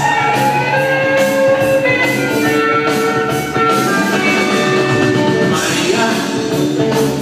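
Rock song with singing, guitar and drums, played loud over a club sound system.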